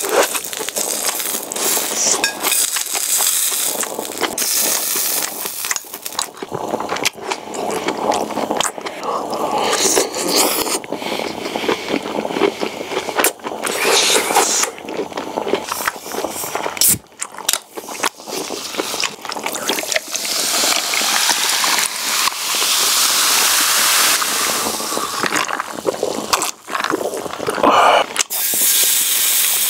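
Close-miked chewing of grilled beef tongue: wet mouth sounds with many small clicks and smacks, briefly dropping off twice, about seventeen seconds in and again near the end.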